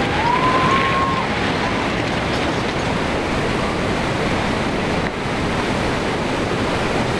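Tsunami floodwater surging through a town and over a seawall: a steady, dense rushing of churning water. A thin tone rises and holds for about a second near the start.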